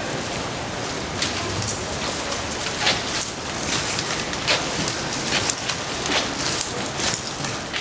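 Strandbeest walking: its plastic tube legs and joints clatter in a steady rustling hiss, with many sharp irregular clicks.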